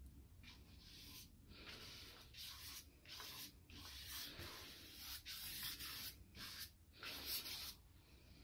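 Flat bristle paintbrush brushing acrylic paint onto a sheet of cartridge paper: a quick run of short, irregular swishing strokes.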